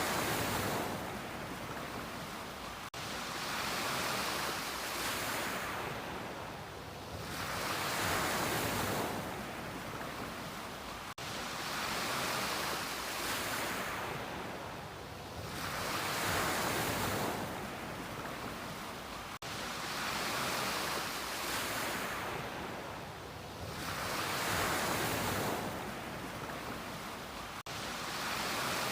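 Ocean surf on a beach: waves breaking and washing in, a hiss that swells and falls back about every four seconds.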